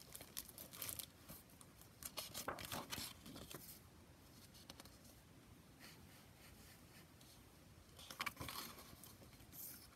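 Pages of a hardcover picture book turning and its clear plastic library jacket crinkling as it is handled: rustling through the first few seconds and again about eight seconds in.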